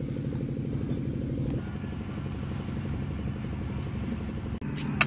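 An engine running steadily with a fast, even pulse, with one sharp click near the end.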